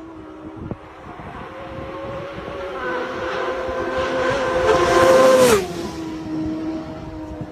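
Racing motorcycle on a road circuit approaching flat out, its engine note growing steadily louder. It passes close by about five and a half seconds in, the pitch dropping sharply as it goes past, then fades down the road.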